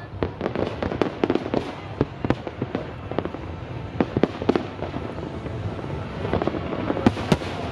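Aerial fireworks going off in a rapid, irregular barrage: many sharp bangs and crackling pops over a steady rumble of more distant bursts.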